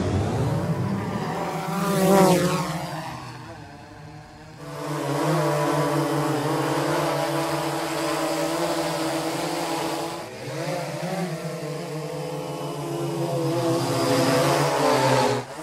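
Quadcopter drone's electric motors and propellers whining in flight, a stack of steady tones. The sound swells and bends in pitch as the drone sweeps past about two seconds in, fades to a dip near four seconds, then settles into a steady hum with a brief dip around ten seconds.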